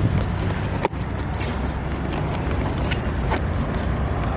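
Steady low rumble of a car on the road, with a single sharp click about a second in.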